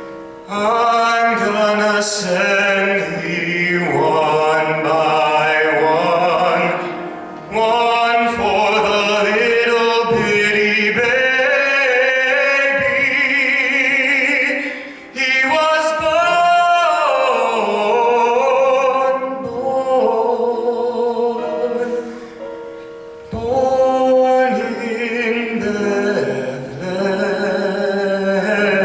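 High school chorale singing a gospel spiritual in harmony, in long phrases with short breaks between them.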